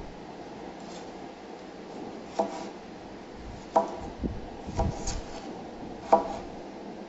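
Cleaver cutting through tomatoes onto a wooden cutting board: about five sharp knocks, unevenly spaced, starting about two seconds in.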